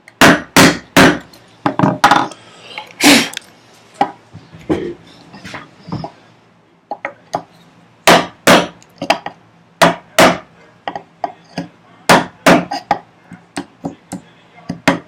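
Woodworking chisel struck repeatedly with a mallet, chopping out a housing dado in a wooden vise chop. About twenty sharp knocks come in irregular groups, with a short pause about six seconds in.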